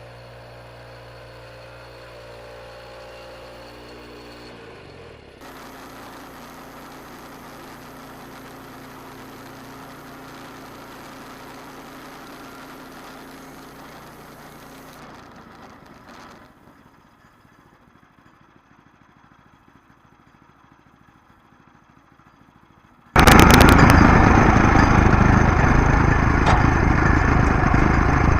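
A quieter machine hum lets up, and about 23 seconds in an engine starts abruptly and runs loud and steady.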